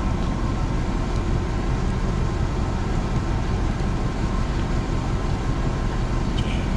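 A 4x4 truck's engine idling steadily after warming up, a constant low rumble. Near the end a couple of footsteps crunch in the snow beside it.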